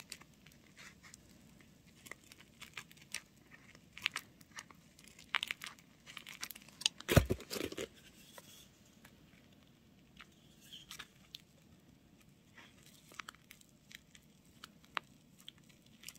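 Scissors snipping and clear tape crinkling as excess tape is trimmed from a tape-wrapped paper squishy, in scattered small snips and rustles with a louder crinkle about seven seconds in.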